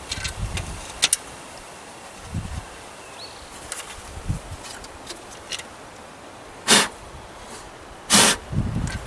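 Spark plug wire boots being pushed and snapped onto a new distributor cap: a few scattered clicks and short rustles over a faint steady hiss, the two loudest near the end.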